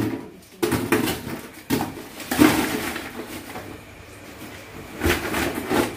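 Plastic storage jar and fried crackers being handled: a few sharp plastic knocks, and a crisp rustle of crackers for a second or so after the third knock.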